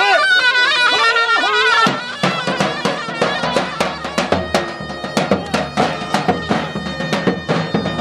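Davul bass drum and a shrill reed wind instrument playing folk dance music: a wavering, ornamented reed melody over drum strokes several times a second. The sound changes abruptly about two seconds in, after which the drum beats stand out more.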